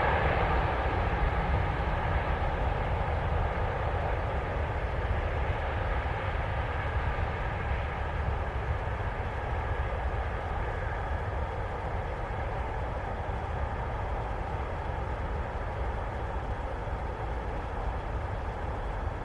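Container freight train rolling past, a steady rumble of wagons on the rails that slowly fades as the train draws away.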